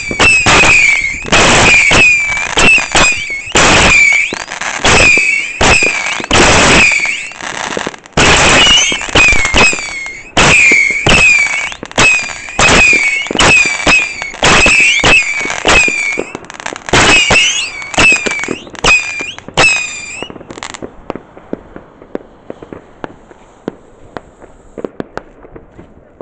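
Two Vulcan Saturn Missile 300-shot batteries firing together: a rapid, loud stream of shrill whistling missiles with sharp pops, several a second. The barrage stops suddenly about twenty seconds in, leaving only faint scattered crackles.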